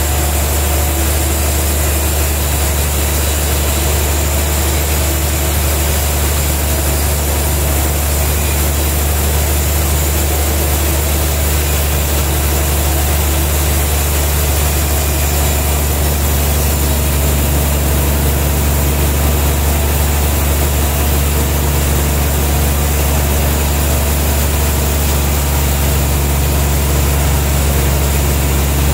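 Large band sawmill running with a loud, steady low hum from its drive, unchanging throughout.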